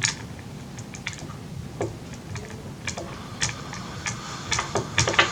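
Irregular small clicks and taps of a screwdriver working the small screws out of the side of a laptop hard drive's mounting plate, coming more often near the end.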